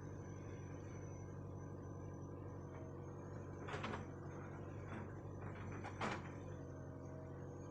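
Hitachi backhoe's diesel engine idling steadily, with two short clanks about four and six seconds in.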